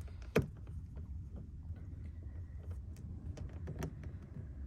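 A plastic door-panel retaining clip snapping into its hole with one sharp click, followed by a few fainter clicks of handling, over a low steady hum.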